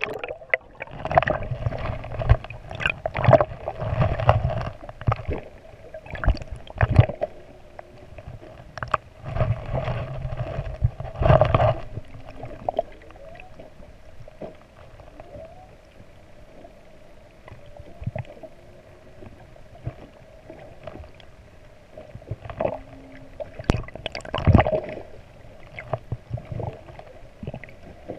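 Underwater sound picked up by a camera in its housing: irregular sloshing, gurgling and knocks of water moving against it, heavier in the first half and again near the end, over a faint steady hum. A few faint short low tones sound in the quieter middle stretch.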